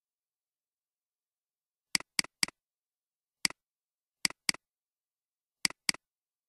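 Computer mouse button clicking: a quick run of three clicks, a single click, then two double-clicks, each a short sharp tick, with silence between.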